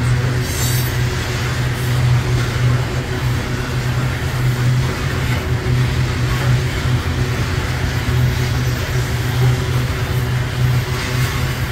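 Coal train's hopper cars rolling past, steel wheels on the rails making a steady low rumble.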